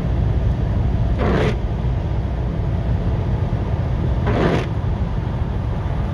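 Rain-X Expert Fit hybrid wiper blades sweeping across a car windshield: a short swish about every three seconds, over a steady low rumble.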